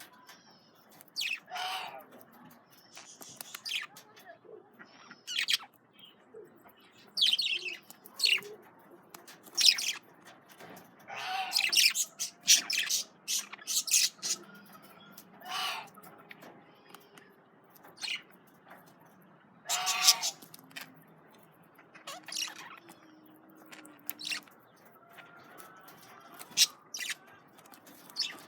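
Budgerigars chirping and squawking in short, separate calls, some closely grouped, scattered across the whole stretch with brief quiet gaps between them.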